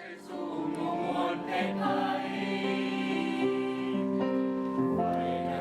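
Background music with sustained choir-like chords.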